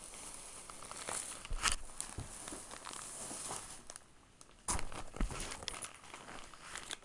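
Plastic packaging rustling and crinkling as a bag of Carefresh small-animal bedding is dug out of a shopping bag, with scattered sharp crackles. It goes quieter about four seconds in, then comes a sudden loud rustle.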